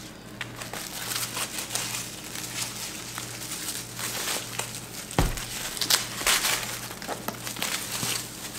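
White packaging wrap crinkling and rustling as it is pulled and unwound from a new leather handbag's strap and handle, with a dull thump about five seconds in.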